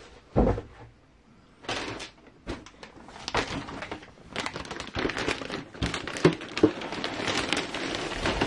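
A thump about half a second in, then the crinkling and rustling of a large clear plastic bag full of bagged kit parts being handled, with a couple of sharp clicks from the parts inside near the end.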